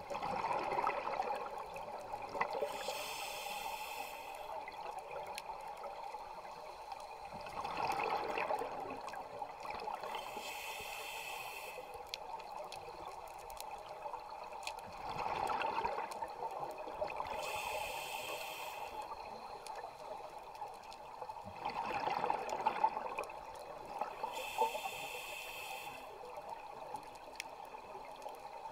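Scuba diver breathing through a regulator underwater: a hissing inhale, then a burst of bubbling exhaust, repeating about every seven seconds for four breaths.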